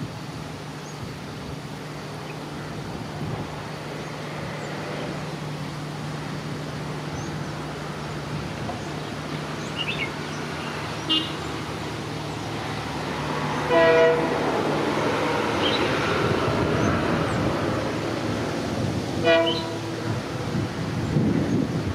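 WDP4D diesel locomotive (EMD 16-cylinder two-stroke engine) approaching with a steady engine drone that grows louder, sounding two short horn blasts about fourteen and nineteen seconds in. From about halfway through, the rumble of the train's wheels and coaches rises under the engine.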